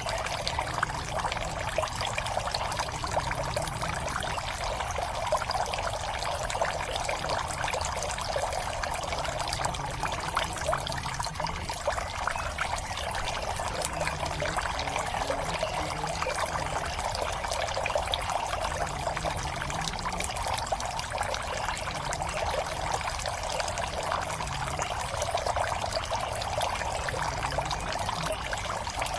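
Water steadily pouring and trickling into a garden pond, a continuous splashing with no change.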